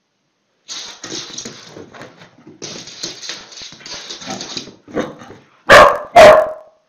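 A dog barking twice, loudly and about half a second apart near the end, after a few seconds of quieter rough noise.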